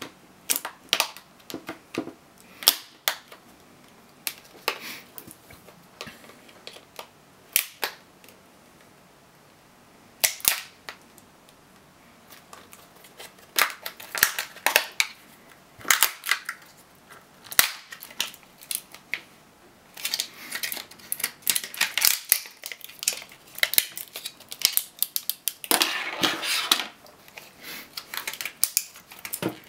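Plastic casing of a laptop battery pack being pried apart with a thin tool: a run of sharp, irregular clicks and snaps as the case's seams give way, with denser flurries of crackling and scraping around the middle and again near the end.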